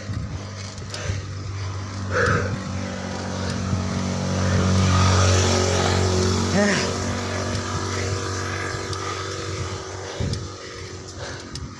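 A motor vehicle engine running steadily, growing louder to a peak about five seconds in and then fading: a vehicle passing by.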